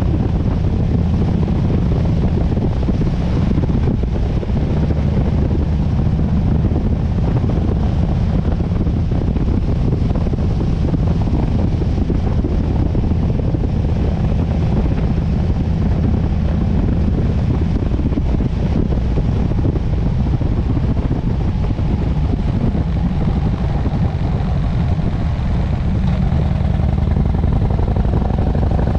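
Harley-Davidson V-twin motorcycle engine running steadily while riding at cruising speed, with wind rushing past the microphone.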